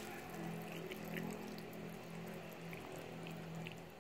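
Pineapple juice poured in a thin stream into a pan of browning chicken, with a few faint crackles from the hot pan. A steady low hum runs underneath.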